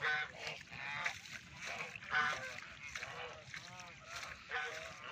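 A flock of domestic geese honking, with repeated calls from several birds overlapping throughout.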